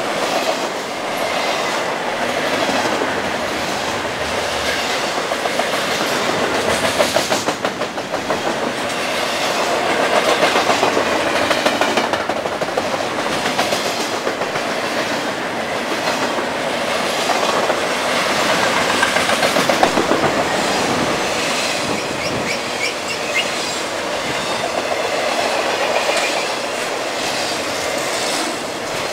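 Intermodal freight cars, double-stack containers and trailers on flatcars, passing close at speed: a steady rush of steel wheels on rail with rapid clickety-clack over the joints.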